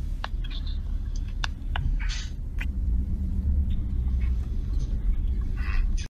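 Steady low rumble inside a moving car's cabin, with a few faint clicks.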